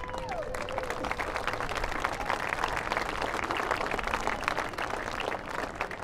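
Audience applauding: many hands clapping in a dense, irregular patter that holds steady.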